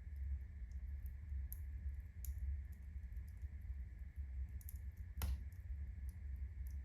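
Birch-log fire in a fireplace crackling as the birch bark burns: scattered sharp ticks and snaps, with one louder crack about five seconds in, over a low steady rumble.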